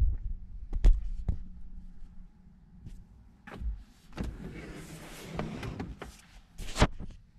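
Handling noise around a car's interior and door: a few short knocks and clicks, a stretch of rustling and rubbing, then one sharp click near the end.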